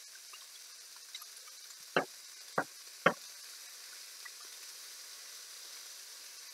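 Moose sausages frying in a pan, a faint sizzle with small pops, broken about two to three seconds in by three sharp knocks, each a little over half a second apart, as the slotted spatula strikes the pan while turning them.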